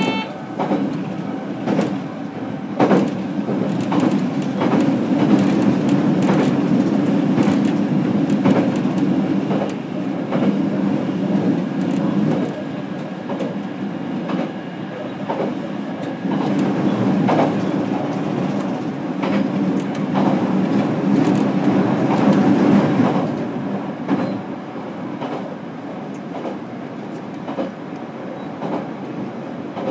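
JR Kyushu BEC819 series battery electric train running, heard from inside the passenger car: a steady wheel-on-rail rumble with frequent short clicks from the track. It swells twice and eases off after about 23 seconds.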